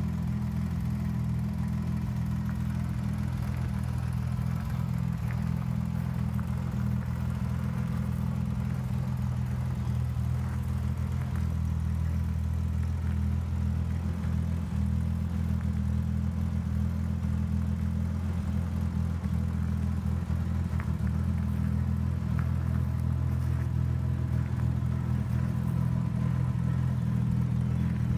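TVR S Convertible's Ford V6 engine idling steadily, a low, even exhaust note that gets slightly louder near the end.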